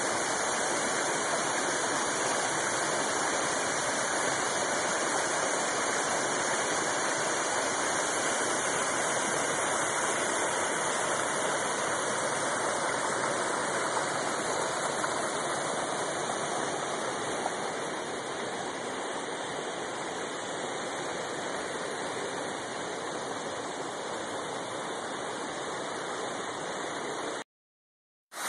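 Waterfall: a steady rush of falling water, easing a little past the middle and cutting off abruptly near the end.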